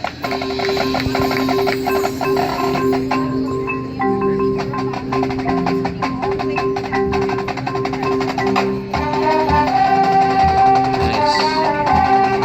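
High school marching band music: rapid mallet-percussion notes over steady held chords, with a higher melody line coming in about nine seconds in.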